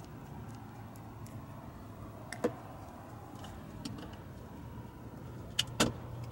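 Sharp clicks and light knocks of hard plastic being handled: one click about two and a half seconds in, a few faint ones, and two louder clicks close together near the end, over a steady low hum.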